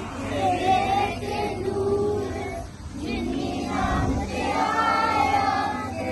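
A group of children singing together in long held phrases, with a short break a little under three seconds in.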